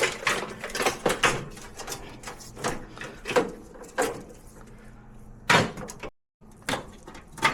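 Irregular clicks, knocks and snips of hand tools and wiring being handled while a connector and zip ties are cut off a car's wiring harness, with one sharper knock about five and a half seconds in.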